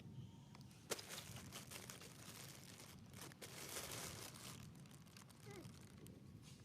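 Faint crinkly rustling with a sharp click about a second in, louder for a moment a little past the middle.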